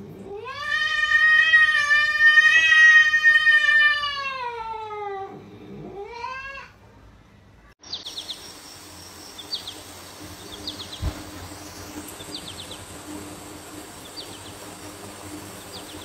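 Cat yowling: one long drawn-out call that rises and then slowly falls over about five seconds, followed by a short rising meow. After that, a quieter steady background with faint short high chirps about every second and a half.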